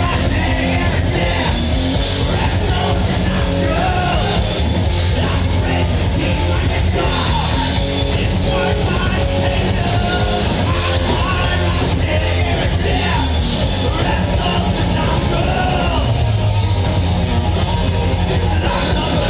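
Heavy metal band playing live at a steady loud level, with sung and yelled vocals over the full band.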